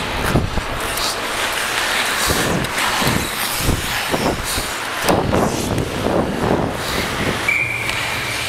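Ice hockey skates scraping and carving the ice at speed, with sticks clacking and knocking. About seven and a half seconds in, a referee's whistle blows one steady note for about a second, stopping play.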